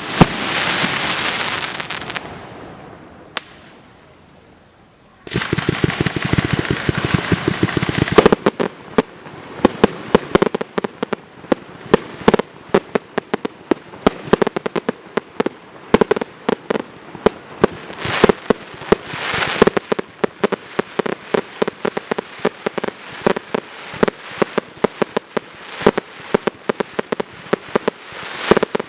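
Fireworks display. A hissing crackle fades over the first few seconds and a short lull follows. From about five seconds in comes dense crackling with a rapid, continuous string of sharp bangs.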